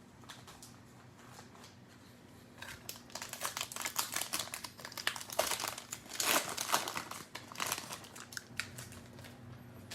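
Crinkly plastic wrapper of a Panini Mosaic cello pack of trading cards being torn open and crumpled: a dense run of crackling that starts about two and a half seconds in, is loudest a little past the middle and dies down near the end.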